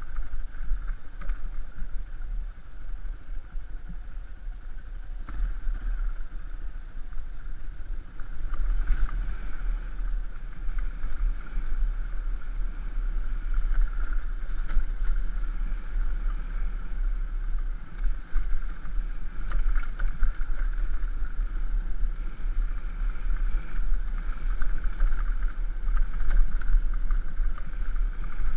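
Dirt bike's engine running steadily while riding over a bumpy, rocky trail, with a constant heavy low rumble underneath.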